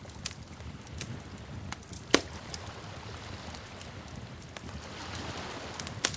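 Wood fire crackling over a low steady rumble, with scattered sharp pops; the loudest pop comes about two seconds in.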